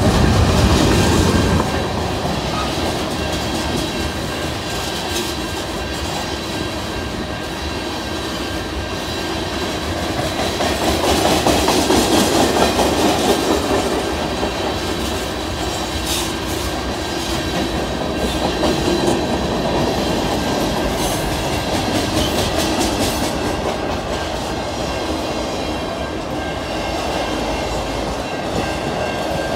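Freight train's cars rolling past, wheels clicking over the rails in a steady clickety-clack, growing louder for a few seconds about ten seconds in.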